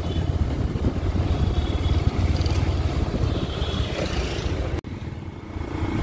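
Motorcycle riding along a street: engine and road noise with wind rumbling over the microphone. The sound drops out for an instant about five seconds in and comes back quieter, with a steadier hum.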